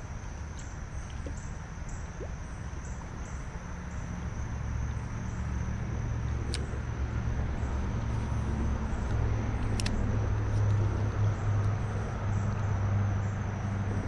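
A passing motor vehicle's low rumble, growing louder from about four seconds in and staying strong until near the end. Under it runs a steady high insect buzz with an even pulse, and there are two sharp ticks around the middle.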